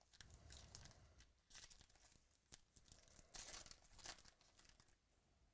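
Trading-card pack wrapper being torn open and crinkled by hand: several short, faint rips and rustles.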